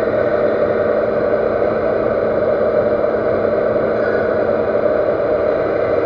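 Metal lathe running steadily, turning down a 4140 steel shaft with the cutting tool.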